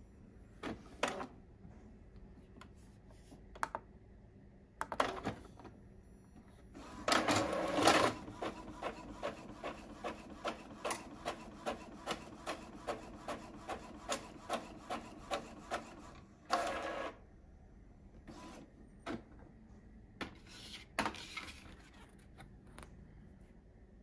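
Epson L3160 inkjet printer printing a photo: a loud burst of mechanism noise about seven seconds in, then a steady run of clicks, about two or three a second, as the print head carriage passes, and another short loud burst a little after sixteen seconds.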